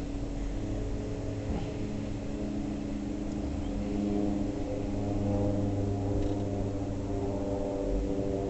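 Steady low mechanical hum holding several tones.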